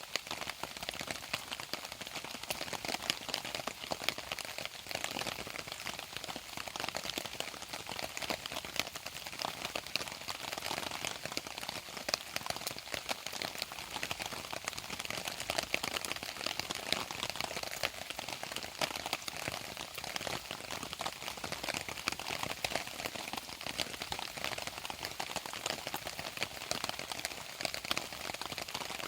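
Steady rain pattering, a dense, even spread of small drop ticks.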